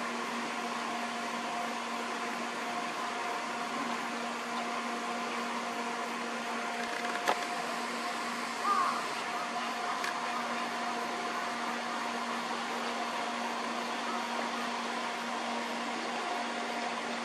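Steady whooshing noise with a constant low hum, broken by a brief click about seven seconds in and one short chirp about nine seconds in.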